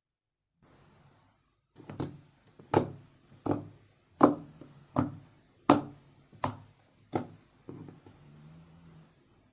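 Homemade Fevicol glue and Pond's powder slime being handled by hand, with a run of about nine sharp pops or clicks, roughly one every 0.7 s, then softer squishing near the end.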